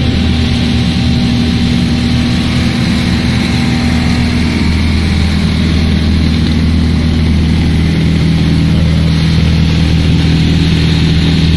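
A motor or engine running steadily with a constant low hum, its pitch settling a little lower about four seconds in.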